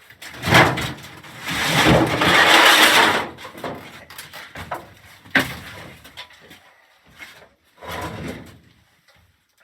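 Sheet metal being slid and knocked about during furnace and ductwork work: a sharp knock, a long scrape lasting a second and a half, another sharp knock about five seconds in, and a shorter scrape near the end.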